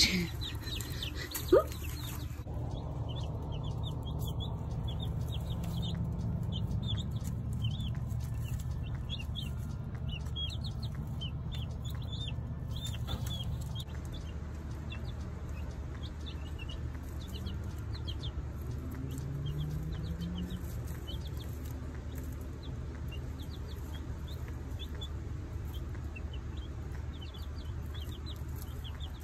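A brood of baby chicks peeping, many short high peeps overlapping irregularly, over a steady low hum. A sharp knock comes about a second and a half in, before the peeping starts.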